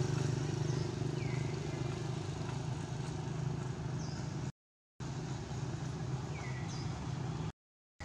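Steady low engine hum with a few short, high, falling chirps over it. The sound cuts out completely twice, for about half a second each time.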